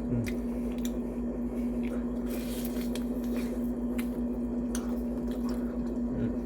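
Close-up wet chewing and mouth sounds of someone eating mini tacos with cheese sauce, with small scattered clicks, over a steady low hum.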